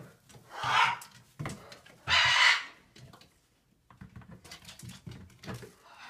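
Scarlet macaw giving two loud, harsh squawks about a second and a half apart: a nesting mother warning the person away from her chicks. Faint tapping and rustling follow.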